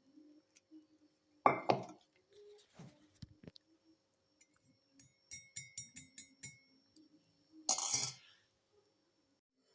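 A spoon clinking against a glass while a drink is being stirred: a quick run of about seven ringing clinks, about five a second, in the middle, with a few scattered knocks. Two short louder noisy bursts come about one and a half seconds in, the loudest, and again near the end.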